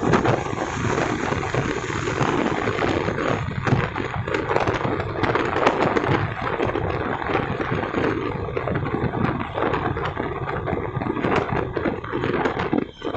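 Honda CB Shine 125 cc single-cylinder motorcycle riding at highway speed: a steady engine drone mixed with wind rushing over the microphone.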